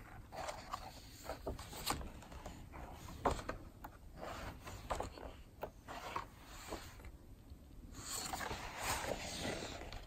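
Paper pages of a book being turned and handled by hand: crisp rustles and small flicks, with a longer sweep of paper near the end.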